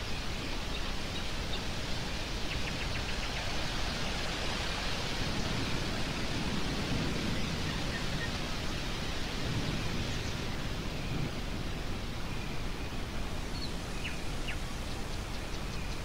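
Stormy wind blowing steadily, swelling heavier in the middle, with a few faint, brief bird calls near the start and near the end.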